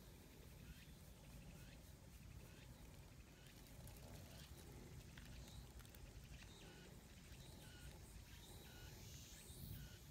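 Near silence: faint outdoor ambience with scattered small bird chirps in the distance.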